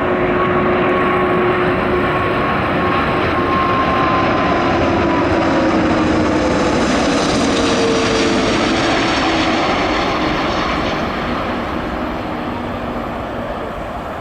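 Jet airliner passing close, its engines giving a loud, steady roar with whining tones that fall in pitch as it goes by. The roar eases off near the end.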